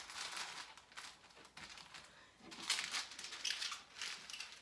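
Holographic foil gift-wrap paper crinkling as it is handled and held against a wall, in irregular rustles, loudest about three seconds in.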